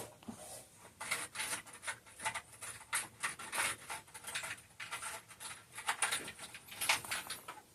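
Irregular light clicks and rattles of small hand tools being handled and set down on a workbench.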